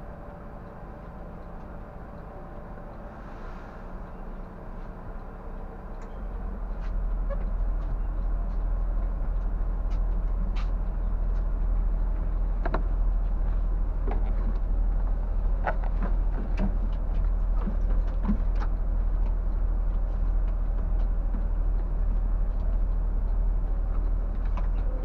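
Scania K124 360 bus's six-cylinder diesel idling while the bus stands still, a steady low hum that gets louder about six seconds in. Scattered clicks and knocks come from inside the cabin as passengers move about.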